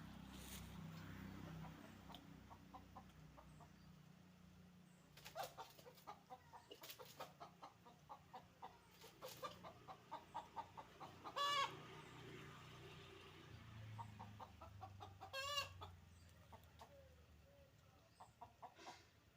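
Faint chicken clucking: runs of quick clucks, with two short, louder squawking calls about eleven and fifteen seconds in.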